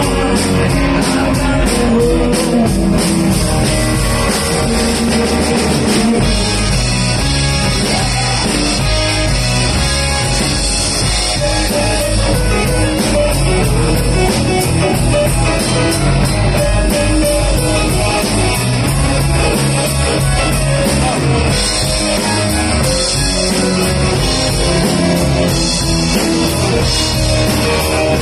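Live rock band playing: electric guitar, bass guitar and drum kit, with a woman singing into a microphone.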